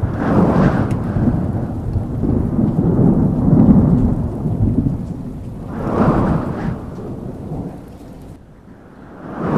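Rolling thunder rumbling deep and low. It swells and fades in waves, loudest about three to four seconds in, with another surge around six seconds. It dies down, then surges again near the end.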